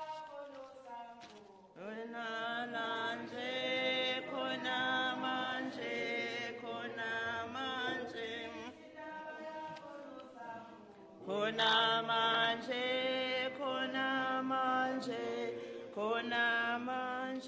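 A woman singing into the microphone in long held notes. The singing starts about two seconds in and breaks off briefly around eleven seconds before going on.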